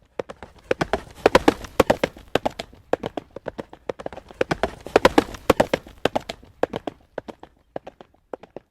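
Horse's hooves clip-clopping at a trot on a hard road surface: a quick run of sharp knocks that grows louder and fades twice.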